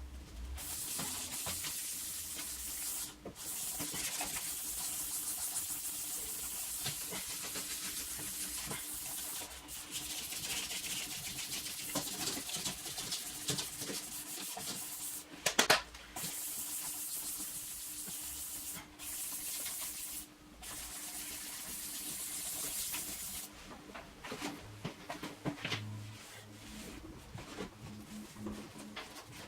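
Abrasive sanding of a plastic headlight lens, a hiss that runs in long passes with short breaks and dies away about three-quarters of the way through. A brief cluster of sharp, louder sounds comes about halfway through.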